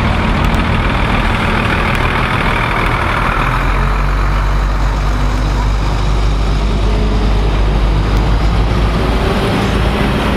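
Diesel engines of fire trucks running as the trucks roll slowly past one after another. The low engine sound grows stronger from about halfway, as a pumper comes right alongside.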